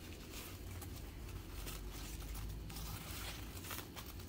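White wrapping paper rustling and crinkling in irregular crackles as a quartz cluster is unwrapped and lifted out of a box.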